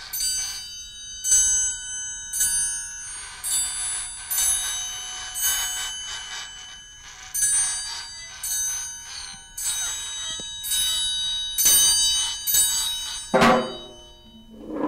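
Children's classroom ensemble playing a slow sequence of bell-like struck notes, each ringing out, one every half second to a second. A louder, duller hit comes near the end.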